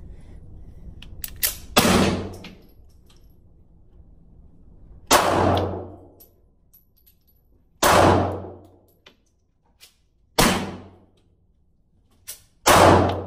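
Taurus Spectrum .380 ACP pocket pistol firing five slow, aimed single shots, about two and a half to three seconds apart. Each shot rings out and echoes briefly in an indoor range.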